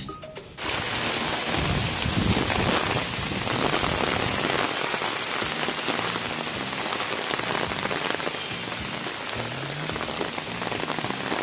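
Heavy rain falling steadily, cutting in abruptly just after the start.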